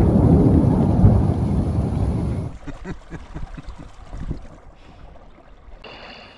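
A loud rumble of thunder that breaks off about two and a half seconds in, leaving a faint patter of ticks. A few held musical notes come in near the end.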